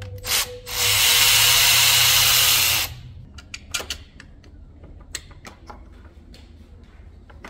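A handheld power tool runs in a brief blip, then steadily for about two seconds before stopping, with a few light clicks and taps of tools afterwards.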